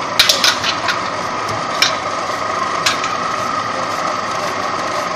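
Furring channel roll forming machine running with a steady mechanical drone. A quick run of sharp metallic clicks and clanks in the first second, then two single clanks about a second apart, as a cut steel channel is handled and pulled from the machine's exit.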